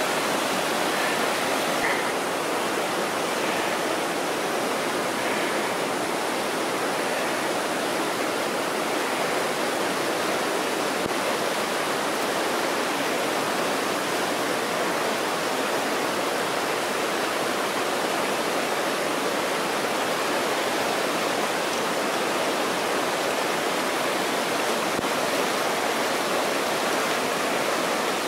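Whitewater rapids of the Salmon River rushing steadily, a continuous even roar of churning water with no break.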